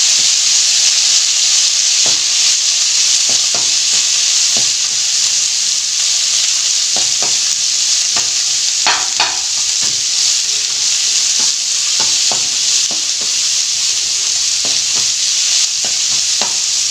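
Chopped chayote sizzling steadily in hot oil in a kadai as it is sautéed, with a spatula stirring and scraping the pan in short irregular strokes.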